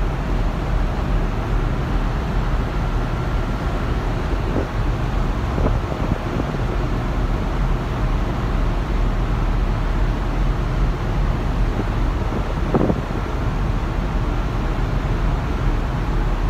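Steady wind buffeting the microphone over the rush of churning sea water between two ships steaming side by side, with a low, even rumble underneath.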